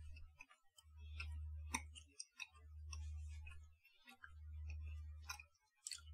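Faint mouth clicks and smacks of a person chewing and sucking a candy, over a low hum that swells and drops out about every two seconds.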